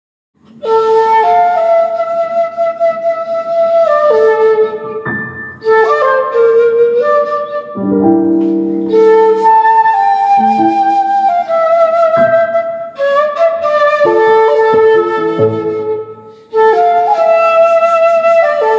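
A seven-hole 1.6-shaku shakuhachi plays a slow melody of held, breathy notes with piano accompaniment. The music starts about half a second in and moves in phrases with short breaks between them.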